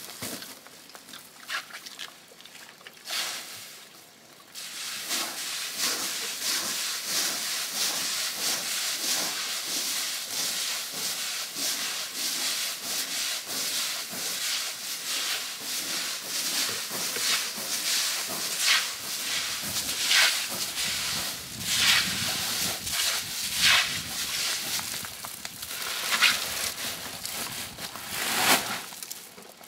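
Coffee beans being scooped by hand into a woven plastic sack: a dense, continuous rustling shuffle of beans sliding and dropping, with the sack's plastic crinkling and sharper strikes now and then. It starts in earnest about four seconds in, after a few scattered clicks.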